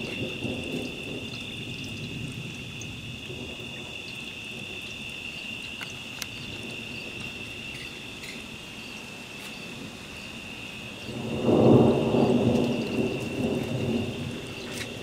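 Thunder rumbling low through a thunderstorm, with a louder roll of thunder building about eleven seconds in and dying away over the next three seconds.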